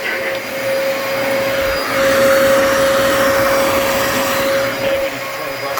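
Dyson DC33 bagless upright vacuum cleaner running at full speed, its motor holding a steady high whine over the rush of air, which swells louder through the middle.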